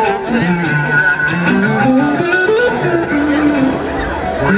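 Live blues-rock band playing, led by an electric guitar line of gliding, sliding notes over the rest of the band.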